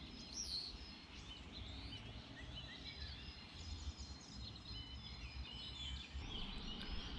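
Faint birdsong: several small birds chirping and whistling over a low, steady background rumble.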